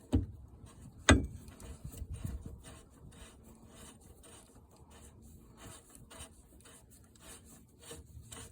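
Two sharp knocks about a second apart, then faint scraping and light taps: hands and tools working a hydraulic hose and its fitting into place on a skid-steer loader.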